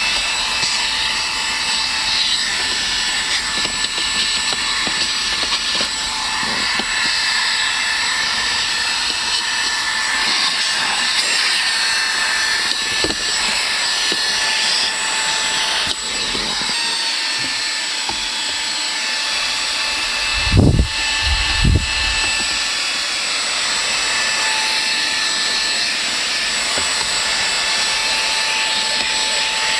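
Xiaomi Mijia portable vacuum cleaner's 120 W brushless motor running steadily: a high whine over a rush of air. Two low knocks come a little after the middle, as the vacuum is handled.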